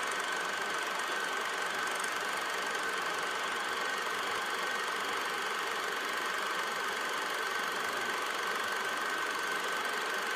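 Cine film projector running steadily: an even mechanical noise with a thin high tone held through it.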